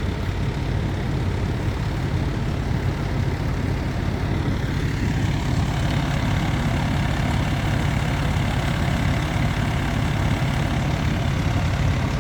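Fire trucks' engines idling at a steady, unbroken low rumble.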